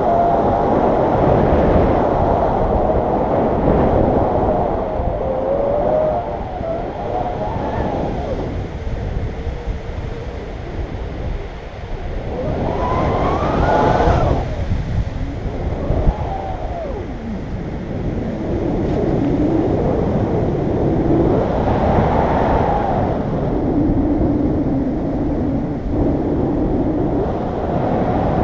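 Wind rushing and buffeting over the camera microphone in the airflow of a paraglider in flight. Wavering tones rise and fall through it now and then.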